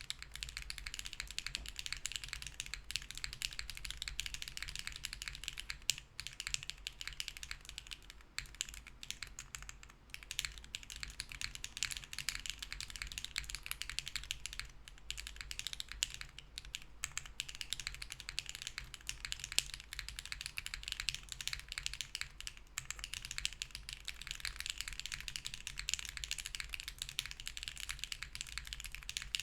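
Continuous typing on a Hera R2 mechanical keyboard with BSUN Bunny switches, a POM plate, no foam and GMK keycaps: a dense, fast run of key clacks with a few brief pauses.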